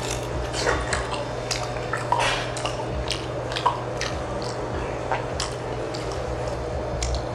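Close-miked eating: wet chewing and squishing with frequent sharp, irregular clicks of utensils against dishes, over a steady low hum.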